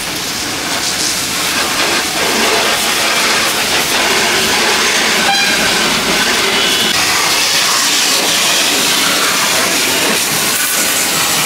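High-pressure washer spray gun jetting water onto a car's front tyre and wheel arch: a loud, steady hiss that grows a little louder about a second in.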